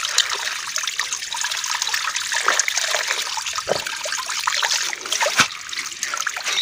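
Running tap water pouring onto salted napa cabbage leaves in a plastic tub while they are rubbed and squeezed by hand under the stream to rinse the salt out: a steady splashing trickle, with one brief knock about five seconds in.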